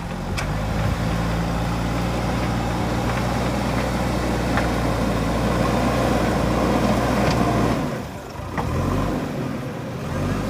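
JCB 3DX Super backhoe loader's diesel engine running steadily at working revs. About eight seconds in, the engine note drops off, then picks up again less evenly.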